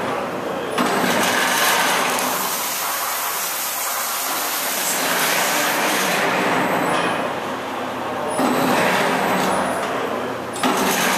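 HMC ET-10 high-speed two-saw trimmer running: a loud, steady machine noise that changes abruptly several times, about a second in, near six seconds, at about eight and a half seconds and again near the end.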